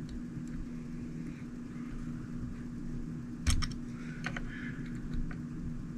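Light clicks and taps of small RC truck parts being handled and fitted by hand, the loudest a knock about three and a half seconds in, over a steady low hum.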